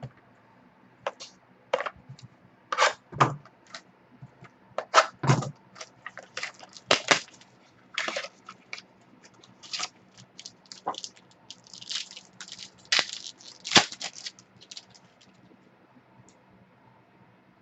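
Trading cards and their packaging being handled: a string of short crinkles, scrapes and tearing sounds, stopping about fifteen seconds in.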